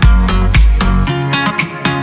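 Background music with a heavy beat about every half second; the beat drops out about halfway through, leaving held notes.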